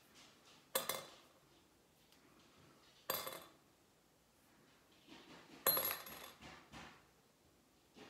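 Small metal accessories clinking as they are handled: three sharp clinks a couple of seconds apart, the last ringing briefly, with faint rustling of clothing between them.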